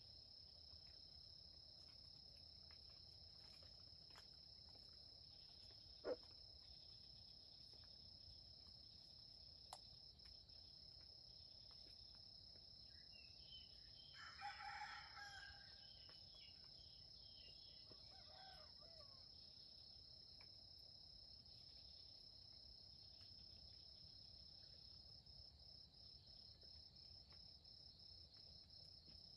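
Junglefowl rooster crowing faintly once around the middle, with a fainter call a few seconds later, over a steady high insect drone. A single sharp click about six seconds in.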